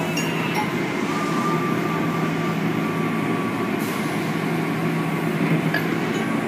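Automatic car wash running: water and foam spraying and cloth brushes sweeping over a car, in a steady rushing noise over a constant low machinery hum.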